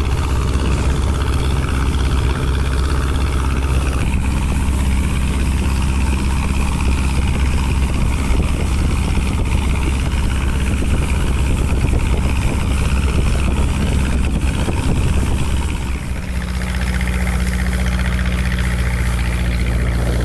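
Motorboat engine running steadily with a low hum, its note shifting slightly about four seconds in and again near the end.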